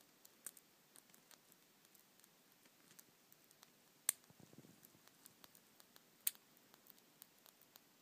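Small bat chewing a mealworm: irregular faint wet clicks and smacks, with two sharper clicks about four and six seconds in.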